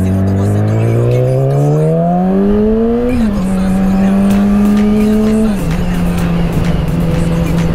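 2014 Yamaha YZF-R6's inline-four through a Radiant shorty GP exhaust, rising in revs under acceleration for about three seconds. The note then drops sharply with an upshift and holds steady. It drops again slightly about five and a half seconds in and holds there.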